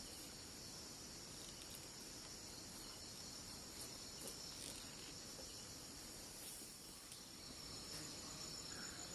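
Night chorus of crickets: a steady high-pitched chirring, with a faster pulsing trill coming in near the end.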